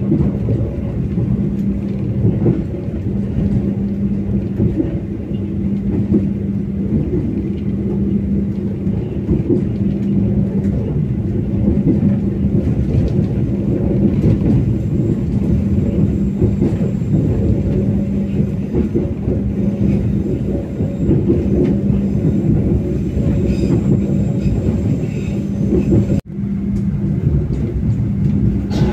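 KA Kutojaya Utara passenger train running, a steady rumble with a constant low hum, broken by one sudden very short dropout near the end.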